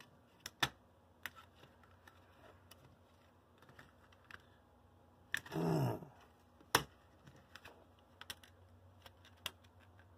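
Small plastic clicks and taps as the body shell and parts of a Tyco GP20 HO-scale model locomotive are handled and fitted by hand, with a sharper click a little before seven seconds in. A brief louder sound with a falling pitch comes about five and a half seconds in.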